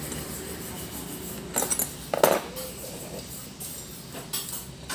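Steel ring and open-end spanners being laid out and shifted against one another: several scattered metal clinks, the loudest a little over two seconds in.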